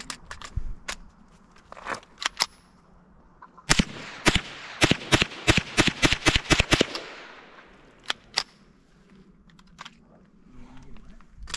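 Ruger 10/22 Takedown, a semi-automatic .22 rifle, fired rapidly in a fast string of about a dozen sharp shots over some three seconds. Two more single shots follow.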